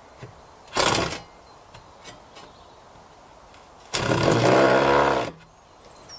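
Electric power saw run in two short bursts, a brief blip about a second in and a longer run of about a second and a half near the end, while cutting a wooden slat.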